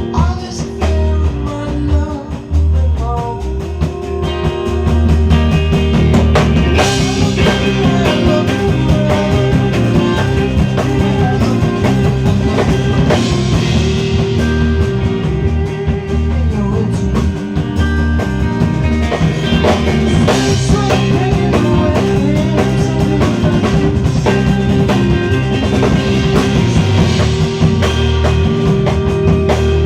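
A rock band playing live, with guitar and drums, growing louder and fuller about six seconds in.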